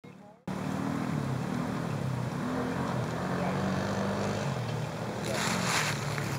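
Truck engine revving up and down as it drives, its pitch rising and falling. A rush of wind on the microphone comes in about five seconds in.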